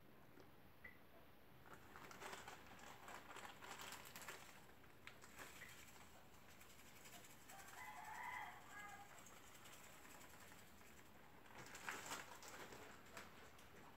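Faint rustling and crackling from hands working turnip pieces in a bowl at a sink, in two spells a few seconds long. A short, faint animal call comes about eight seconds in.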